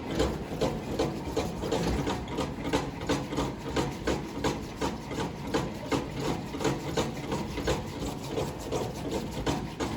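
A race-game car's drive mechanism worked at a steady pace, giving a rhythmic mechanical rubbing and clatter of about three to four strokes a second.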